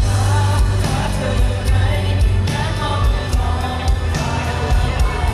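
Live rock band playing, a man singing lead over electric guitar and a steady beat.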